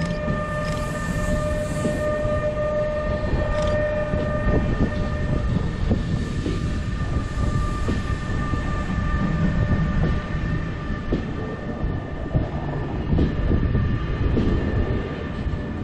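A freight train of car-carrier wagons hauled by an E186 (Bombardier TRAXX) electric locomotive pulls out across a level crossing. The wheels rumble steadily and clack again and again over the rail joints, under a steady high whine that lasts throughout.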